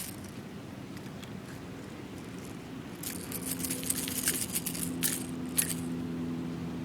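Metal clicking and rattling of pliers working a hook loose from a bass's mouth, coming in bursts from about three seconds in, over a steady low hum.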